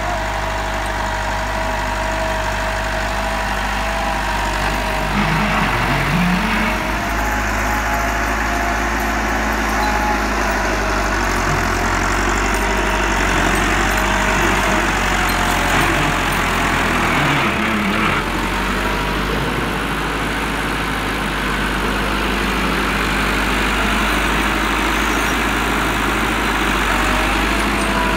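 Massey Ferguson 385 tractor's diesel engine running steadily while pulling a tine cultivator through the soil, with brief dips in engine pitch about six seconds in and again about seventeen seconds in.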